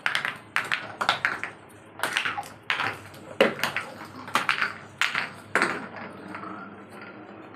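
Glass bottles being crushed and breaking: a quick run of about ten sharp cracks and clinks, each ringing briefly. The cracks thin out after about six seconds.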